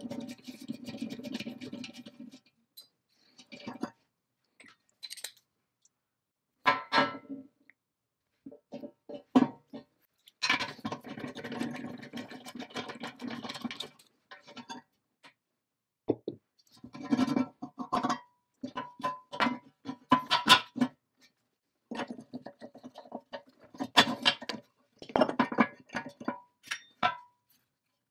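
A hex bolt being turned out of an old rusty steel bracket with a socket and extension: short bouts of metal-on-metal scraping, squeaking and clinking, separated by silences.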